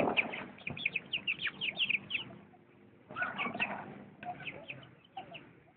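Birds chirping: quick runs of short, high chirps, with a pause about two and a half seconds in before they start again.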